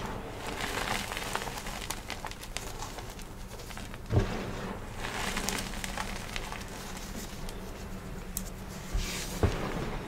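Hands squeezing and crumbling powdery gym chalk, a soft continuous crunching hiss as the chalk breaks and pours through the fingers. A dull thump about four seconds in and two more near the end as the hands press down into the chalk.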